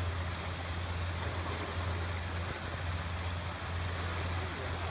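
Water splashing and sloshing as elephants swim and play in a pool, over a steady low hum.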